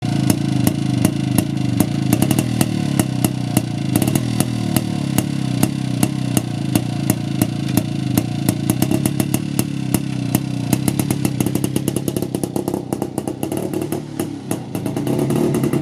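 Motorcycle engine running with a steady, sharp beat. The beats come closer together in the middle and ease off slightly near the end.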